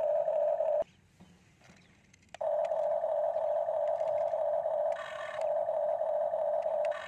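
Huina remote-control toy excavator's electric motors whining steadily as the turret swings and the arm digs. The whine cuts out for about a second and a half just under a second in, then starts again.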